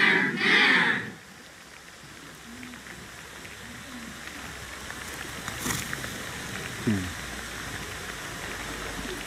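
Several voices sounding together in unison, breaking off about a second in. Then a quiet open-air background with a few faint vocal fragments and a low falling sound near the end.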